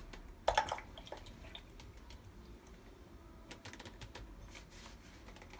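Faint handling of the plastic enhancer-solution bottle and tank of a water ioniser: a short clatter about half a second in, then scattered light clicks and ticks.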